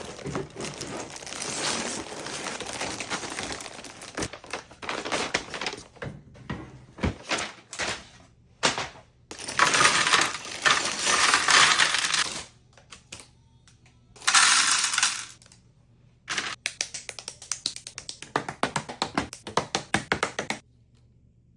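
Small plastic Lego pieces clattering and rattling against each other in several bursts of dense clicks, with short quiet gaps between.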